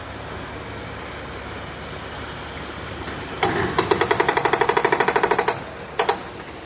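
JCB 3DX backhoe loader's hydraulic breaker hammering: a steady diesel engine hum, then a rapid run of strokes, about ten a second, for about two seconds past the middle, and a brief second burst near the end.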